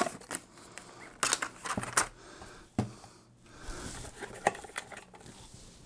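Cardboard packaging being handled as a camera grip is slid out of its box: scattered sharp clicks and knocks with soft rustling of cardboard and paper in between.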